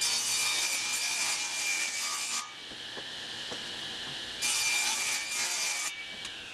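Table saw cutting birch plywood: a loud cut of about two and a half seconds, the blade then spinning free with a steady whine for about two seconds, then a second cut of about a second and a half.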